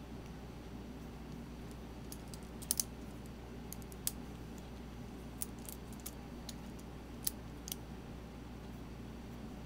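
A cheap wood-and-brass balisong (butterfly knife) being handled, giving sparse light clicks, with a quick double click a little under three seconds in, over a faint steady low hum.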